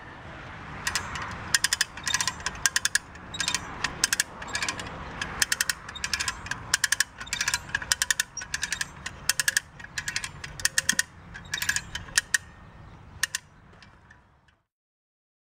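Harbor Freight come-along lever winch ratcheting as its handle is pumped with the pawls engaged, hauling up the weight of a laid-over motorcycle. Its clicks come in quick clusters, one cluster with each pump stroke.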